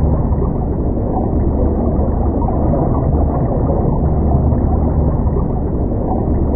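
A loud, steady low rumbling noise with a constant deep hum beneath it. The sound is muffled, with nothing in the upper range.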